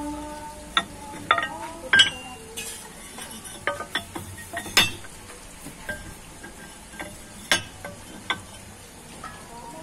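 Steel hammer blades of a sand-crushing hammer mill clinking and knocking against the rotor shaft and discs as they are handled and fitted by hand during blade replacement: about seven sharp metallic clinks at irregular moments, the loudest about two seconds in and again past halfway.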